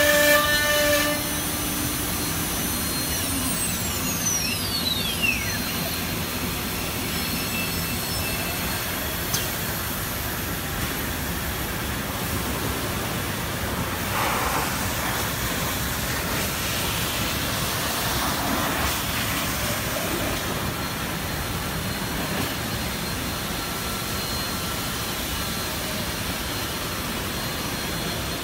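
CNC router's Hiteco spindle whining at high speed, cutting off about a second in and winding down with a falling pitch over the next few seconds. Then a steady rushing air noise from the machine's dust extraction runs on, with a few faint knocks of panels being handled.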